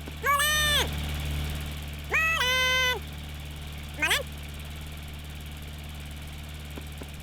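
A steady low hum, like a motor running, under three high-pitched calls in a cartoon voice: two of about half a second to a second near the start, then a short rising one about four seconds in.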